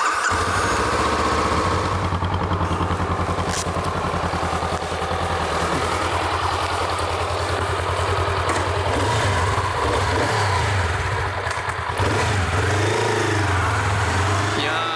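Honda CL500's 471 cc parallel-twin engine running as the motorcycle is ridden at low speed, its pitch rising and falling briefly near the end.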